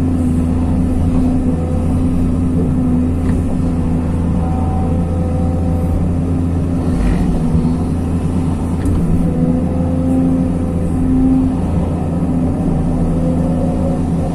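Hyundai R220 crawler excavator's diesel engine running steadily under working load. A hydraulic whine comes and goes over it as the boom and grading bucket are moved.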